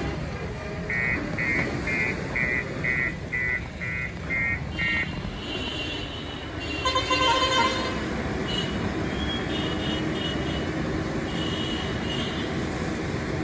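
JCB backhoe loader's diesel engine running steadily as the machine moves through mud. Over the first few seconds its reversing alarm beeps about nine times in quick even succession. A short horn toot comes about seven seconds in.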